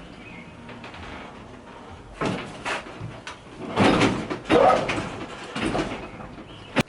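Vending machine mechanism being tried out after a part was refitted: a series of clunks and rattles, then a sharp click near the end.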